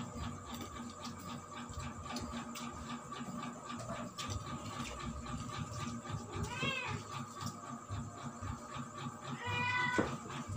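A cat meowing twice, once about two-thirds of the way through and again near the end, over faint clicks of plates and eating at the table.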